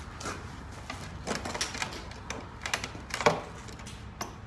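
A run of irregular sharp clicks and rattles from small hard parts being handled, the loudest a little over three seconds in.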